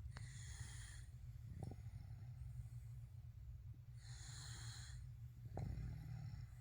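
A sleeping baby snoring softly, with a hissing breath about every four seconds, twice. A brief thump comes near the end, over a steady low hum.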